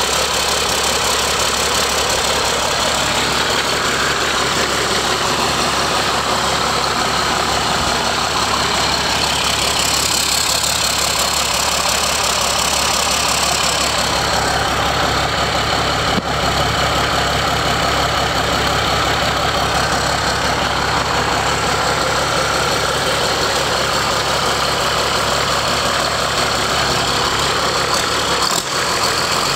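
John Deere 6076 inline six-cylinder turbo diesel engine running steadily.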